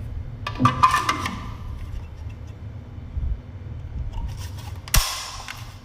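Parts and packaging being handled: a cluster of clicks and rustling about half a second in, then a sharp knock followed by a brief scrape near the end.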